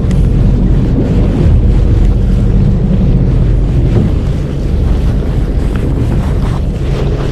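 Wind buffeting the microphone, loud and steady, over the low, even drone of a fishing boat's engine.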